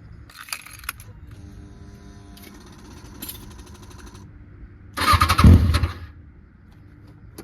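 2006 Kawasaki ZX-6R 636's inline-four being cranked on its electric starter for about a second without staying running, after a faint steady whir. The bike won't start, which the owner suspects may be down to a weak battery.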